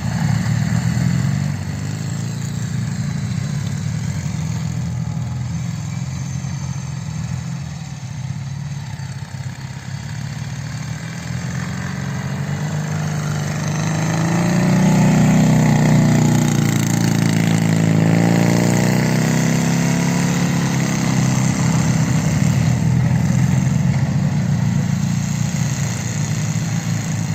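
Heavy flat-twin motorcycle engine running, a Ural or Dnepr. It runs steadily for a while, then from about halfway grows louder, with the revs rising and falling, before settling into steady running again.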